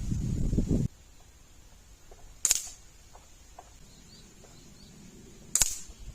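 Stoeger RX5 break-barrel air rifle fired twice, about three seconds apart, each shot a sharp crack. A low rumbling noise stops just under a second in.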